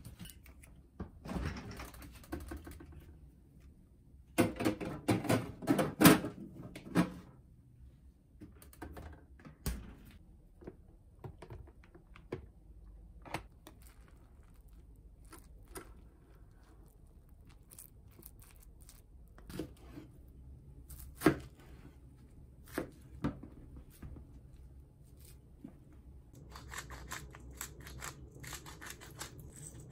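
Plastic bags and food packaging rustling and crinkling, loudest a few seconds in, then scattered light knocks and clicks. Near the end comes a rapid fine patter of seasoning shaken from a bottle onto slices of raw pork belly.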